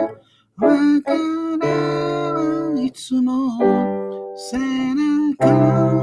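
Piano played in slow, sustained chords of a ballad, with a man's voice singing along. The playing stops for a moment just after the start, then picks up again.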